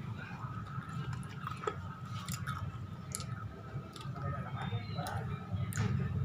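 Crunching of crispy spicy crackers (keripik pedas) being chewed, with irregular sharp crackles over a steady low hum.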